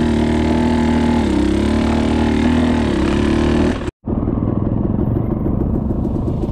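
Dirt bike engine running under way, its pitch dipping and rising with the throttle. Just before four seconds in the sound cuts out abruptly, then returns as a rougher engine note with a rapid pulsing.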